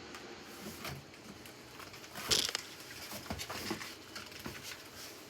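Irregular rustling and small clicks of things being handled at close range, with a sharper crackling cluster about two seconds in.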